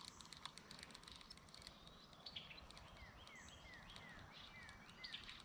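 Faint outdoor ambience: insects buzzing steadily and high, and from about three seconds in a bird calling a quick run of about six short down-slurred notes.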